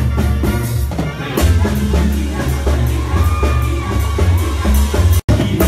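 Banda sinaloense playing live and loud: trumpets and clarinets over a heavy pulsing tuba bass. The sound drops out for an instant near the end.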